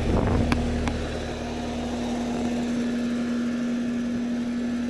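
Outdoor heat pump unit running: a steady compressor hum with fan noise, with a couple of light clicks in the first second.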